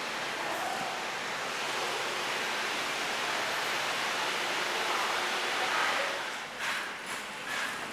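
A steady rushing noise, swelling slightly about five to six seconds in, with a few short rustles near the end.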